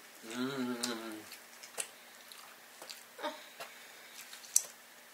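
Mukbang eating sounds: a hummed "mmm" about a second long near the start, then quiet chewing with a few sharp mouth clicks.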